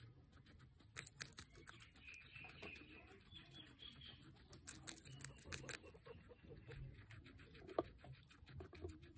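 A guinea pig crunching and chewing a piece of red bell pepper: quick, crisp little bites that come in clusters, the loudest about a second in and again around five to six seconds in.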